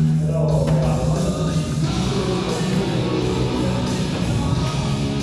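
Loud music with singing, running steadily without a break.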